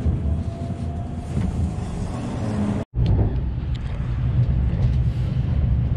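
Steady low rumble of a train in motion, broken by a sudden silent gap about three seconds in.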